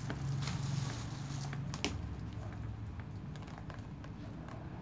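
Dried mung beans dropped a few at a time into a plastic cup lined with cotton wool, making scattered light clicks and patters, with one sharper click about two seconds in, then fewer clicks as the cup is handled. A low steady hum runs underneath.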